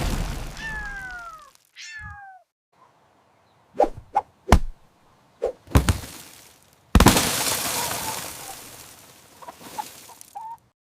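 Cartoon sound effects: a loud noisy crash that fades away, two short meow-like cries falling in pitch, a quick string of knocks, then another noisy crash fading out slowly.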